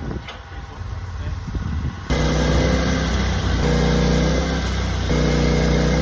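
Portable sawmill's engine running steadily, quieter for the first two seconds and then abruptly louder.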